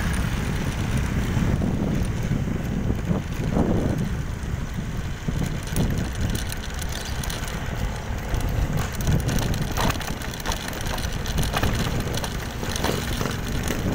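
Motorcycle ride: wind buffeting the phone's microphone over the engine and road noise, a rough, steady low rumble.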